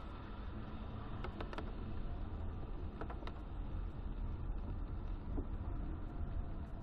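Steady low rumble of a car driving on a wet road, heard from inside the cabin, with a few sharp ticks about a second and a half in and again about three seconds in.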